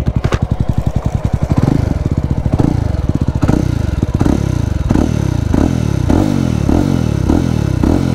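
2024 Jawa 350's single-cylinder engine with the dB killer removed from its exhaust, running stationary with a throaty exhaust note. It idles at first, then from about two and a half seconds in it is revved in quick repeated throttle blips, about two a second.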